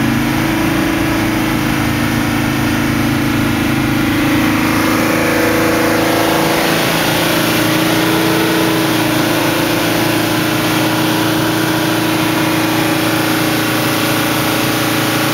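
Mercedes 300SD five-cylinder turbodiesel running steadily at raised revs, around 3000 rpm, held up to burn off carbon during a diesel purge treatment.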